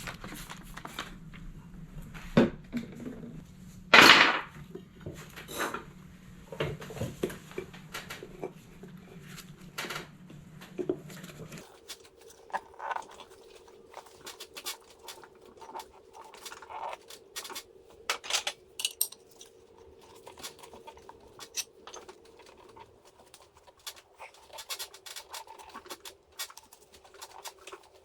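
Scattered clunks, taps and scrapes of a tire bar working a lubricated snowblower tire bead over the rim on a manual mini tire changer, with one loud knock a few seconds in. A steady background hum runs underneath and shifts higher about halfway through.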